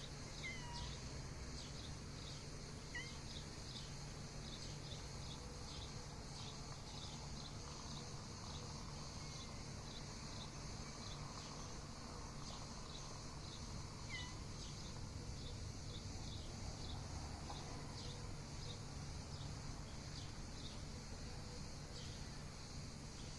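A mother cat calling her kittens with a few faint, short calls, near the start, about three seconds in and around fourteen seconds in, over steady cricket chirping.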